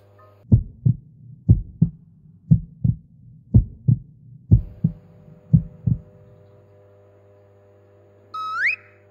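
Heartbeat sound effect: six double thumps, lub-dub, about one a second, that stop about six seconds in. Near the end comes a short tone sliding up in pitch.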